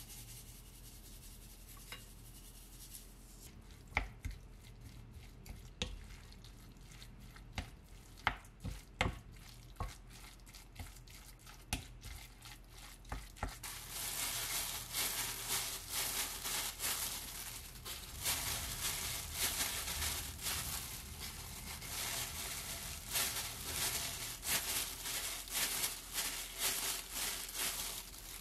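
A wooden utensil knocking and scraping against a glass mixing bowl in scattered taps while rice is stirred. About halfway through this gives way to a steady crackly rustle of plastic gloves and hands squishing and kneading the rice mixture into balls.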